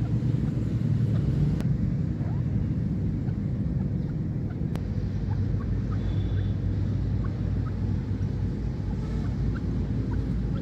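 Steady low rumble with faint short chirps scattered through it, and two light clicks. No francolin call is heard.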